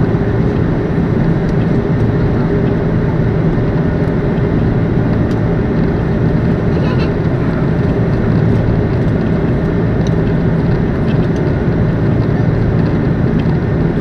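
Steady engine and airflow noise of an Airbus A330-200 heard inside the passenger cabin during the climb after takeoff, an even low rushing drone with a faint hum.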